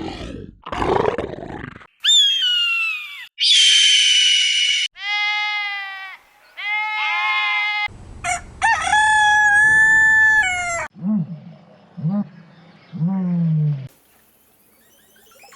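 A rapid string of different animal calls spliced one after another, each cut off abruptly. Two rough, noisy calls come first, then several high pitched calls, some sliding down and some held, then a longer held call. Three short low calls close the run.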